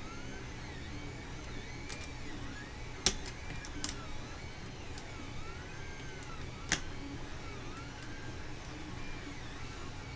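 A running 3D printer, its stepper motors whining in repeated rising-and-falling arcs as the print head moves back and forth. Two sharp clicks stand out, about three seconds in and again near seven seconds in, from hand work on the printer frame being assembled.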